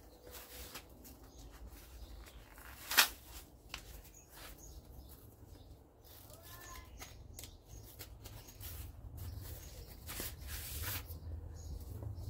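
Handling noise: rustling and scattered clicks, with one sharp click about three seconds in, over a low steady rumble.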